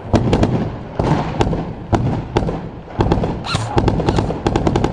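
Airsoft guns firing: scattered single shots, then a quick string of shots close together near the end.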